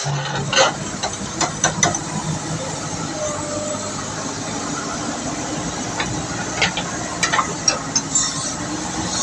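JCB backhoe loader's diesel engine running steadily, with short sharp knocks and clicks scattered through it.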